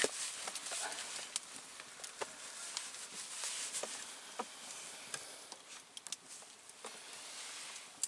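Wood fire crackling, with irregular sharp pops over a steady hiss.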